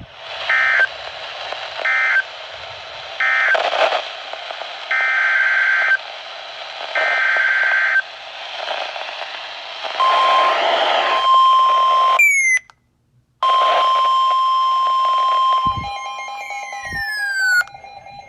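NOAA Weather Radio alert tones over radio static. First come five short bursts of buzzing digital data tones (SAME codes), then the steady 1050 Hz weather-radio warning alarm tone. The alarm cuts out for about a second partway through, and near the end a lower tone and falling sweeps of pitch sound with it.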